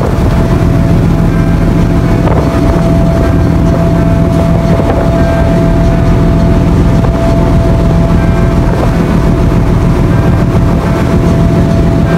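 A passenger ferry under way: its engines give a loud, steady drone with a constant hum, mixed with the rush of the wake water along the hull.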